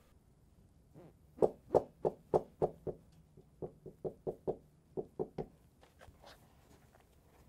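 Knife tip chipping and stabbing at the hard top of a marzipan-covered cake, making a run of about fifteen sharp knocks into the table beneath. They come about three or four a second, pause briefly midway, and stop about two seconds before the end.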